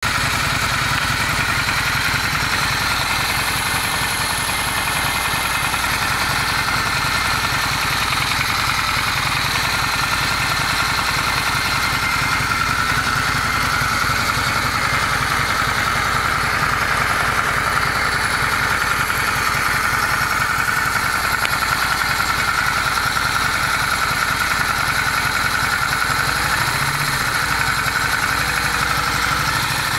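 Honda Steed 400 V-twin engine idling steadily with a knock, which the owner places low down in the rear (left) cylinder.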